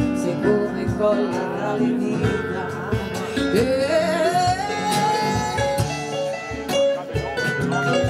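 Live pop band: a female singer on a microphone over electric keyboard and drums. About halfway through her voice slides up and holds a long note.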